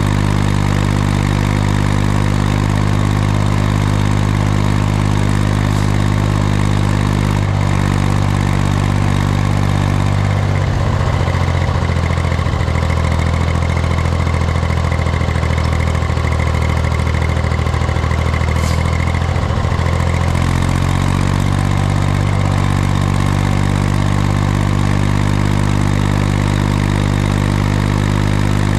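Farm tractor's diesel engine running steadily, heard while disc harrowing. About ten seconds in its speed sags and the note drops, and about twenty seconds in it picks back up to its earlier pitch.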